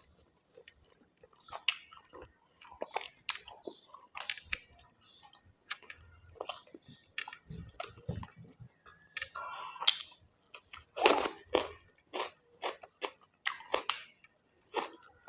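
Close-miked chewing and biting of a rice and curry meal: a steady run of sharp, wet mouth clicks and smacks with a few crunches, loudest about eleven seconds in.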